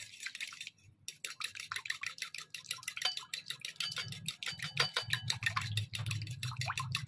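A utensil clicking and scraping rapidly against a bowl as a runny yogurt-and-milk marinade is stirred, starting about a second in. A low hum sits beneath from about halfway.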